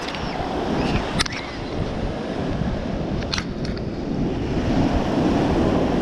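Surf breaking and washing up the sand at the water's edge, with wind buffeting the microphone and a couple of short sharp clicks.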